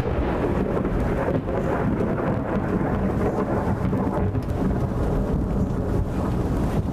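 Strong storm wind buffeting the microphone: a steady, heavy low rumble.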